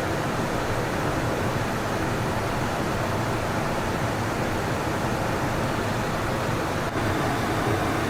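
Steady, even rushing noise of a NATO E-3A AWACS jet aircraft, with a brief dip about seven seconds in.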